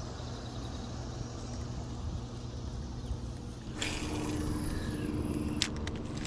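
Steady low rumble of a bass boat out on the water; about four seconds in, a steady low hum and hiss come in, with a few sharp clicks near the end.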